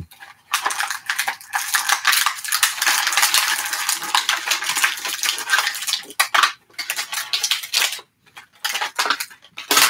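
Clear plastic toy packaging crinkling and crackling as it is handled and worked open: a dense crackle for about six seconds, then on and off with short pauses.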